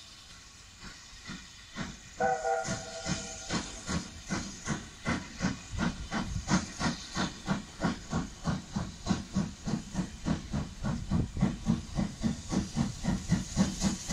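S160 2-8-0 steam locomotive starting away: a short whistle blast, then its exhaust beats chuffing, quickening steadily as it gathers speed.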